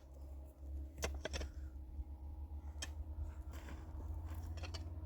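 Scattered light clicks and knocks of small hard objects being handled, a few single strikes and then a quick cluster near the end, over a steady low rumble.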